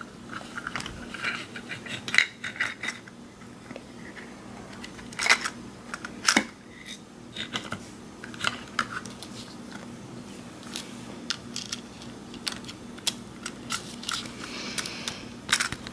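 Hard plastic parts of a toy bird and its cage clicking and knocking irregularly as they are handled and pulled apart.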